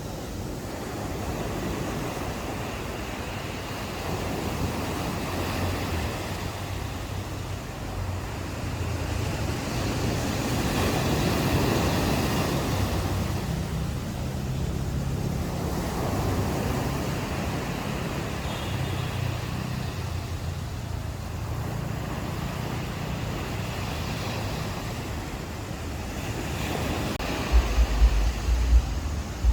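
Sea waves washing in on a beach, a steady hiss that swells and falls back as each wave comes in, strongest a third of the way in. Near the end, low buffeting thumps of wind on the microphone.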